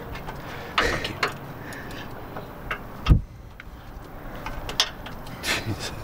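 Scattered metallic clicks and knocks of hand tools and a bolt being worked in by hand, with one heavier thump about three seconds in.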